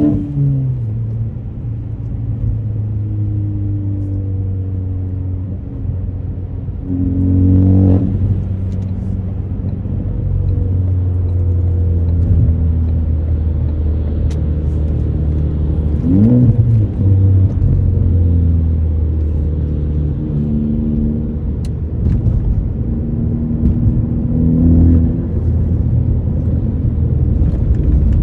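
2018 Ford Focus ST's 2.0-litre turbocharged four-cylinder engine through an AWE axle-back exhaust, running at mostly steady revs while driving. The pitch steps between levels as the car changes speed and gear. The engine revs up briefly about eight seconds in, and rises and falls quickly about sixteen seconds in.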